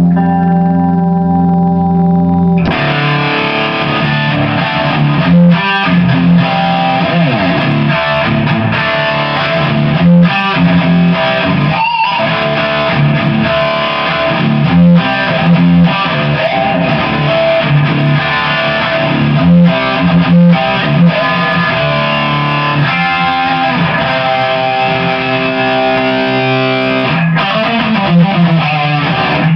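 Electric guitar played through a Line 6 Spider Valve HD100 amp with heavy distortion. It holds ringing notes for the first couple of seconds, then breaks into fast heavy-metal riffing.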